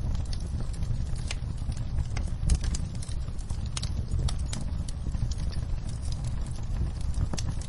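Wood fire in a fireplace crackling, with irregular sharp pops over a steady low rumble, layered with rain.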